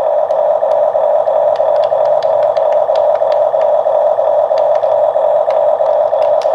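Huina remote-control toy excavator's built-in sound module playing a simulated diesel engine idling through its small speaker: a steady, evenly pulsing tone. A few light clicks sound over it.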